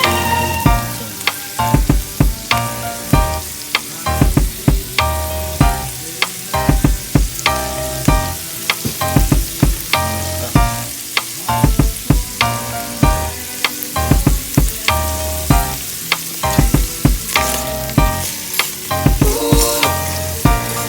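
Food sizzling in a pan as it is stirred, with many sharp clicks and scrapes of the utensil against the pan, over background music.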